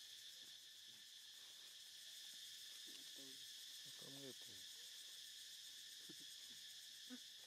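Faint, steady high-pitched chorus of insects, with a couple of faint short calls about three and four seconds in.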